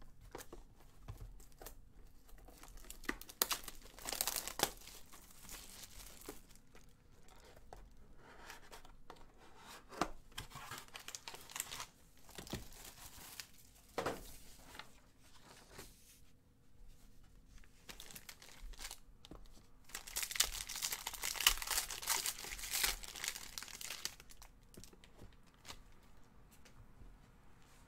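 Plastic and foil wrapping on a sealed trading-card box and pack being torn open and crinkled, in several bursts with small knocks of cardboard being handled; the longest and loudest crinkling comes about two-thirds of the way through.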